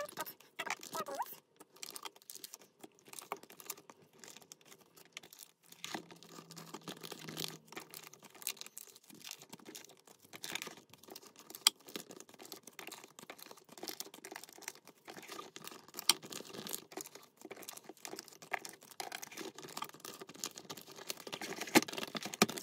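Photocards and plastic binder sleeves being handled: irregular crinkling and rustling of plastic with light taps and clicks as cards are slid into pockets.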